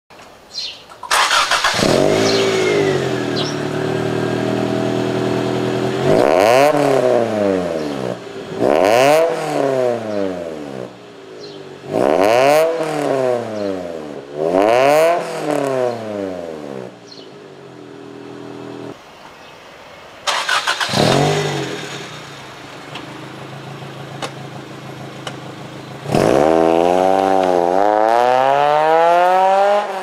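Toyota AE86's 4A-GE twin-cam four-cylinder exhaust through a GReddy TWM muffler with its inner silencer removed: idling, then blipped sharply about five times, each rev climbing and falling quickly, and near the end held in a longer climb in revs. Loud throughout.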